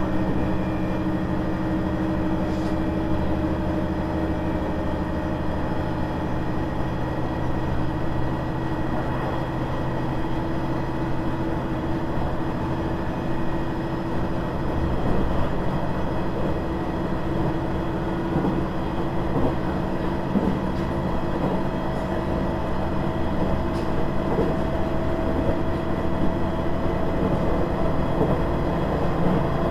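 KiHa 100 series diesel railcar running on the line, with a steady diesel engine drone over continuous wheel-and-rail rumble. The engine note climbs slowly in pitch through the second half.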